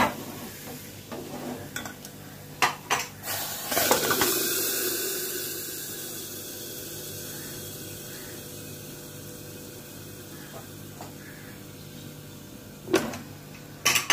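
Hot ghee tadka of cumin, garlic and green chillies poured into cooked dal, sizzling sharply about four seconds in and fading over several seconds. Metal clinks of the tadka ladle against the aluminium pressure cooker come before it and again near the end.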